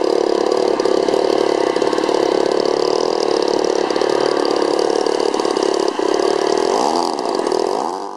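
Radio-controlled model airplane engines droning steadily overhead, with the pitch gliding up and down near the end as the planes manoeuvre.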